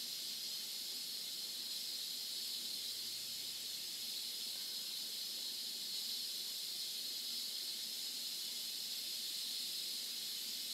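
Instant Pot electric pressure cooker giving off a steady hiss of escaping steam while it comes up to pressure.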